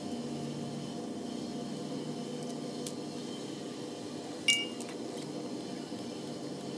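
Metal brush holder plate and brushes of a brushed golf cart motor being handled: a few light clicks, and about four and a half seconds in one sharp metallic clink that rings briefly. A steady hum lies underneath throughout.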